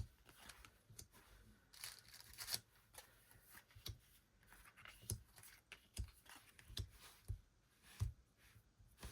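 Faint handling noise of photo cards and album packaging: scattered light taps and clicks, with a brief papery rustle about two seconds in.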